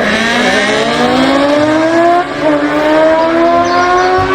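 Racing motorcycle engine sound effect accelerating, its pitch rising steadily, dropping briefly about two seconds in, then climbing again.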